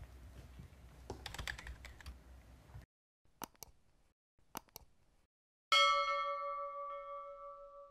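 Faint background noise, then two pairs of quick mouse-style clicks, followed about a second later by a bell chime that strikes suddenly and rings on, fading slowly. These are sound effects for clicking a subscribe button and a notification bell.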